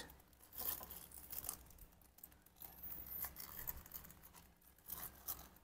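Thin plastic bag crinkling and rustling faintly in short, scattered bursts as meatballs are tipped out of it into a plastic bowl.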